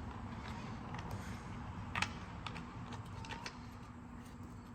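Scattered light clicks and taps of small metal parts being handled as a quick-change adapter is twisted and fitted onto a handheld stick welder, over a faint steady hum.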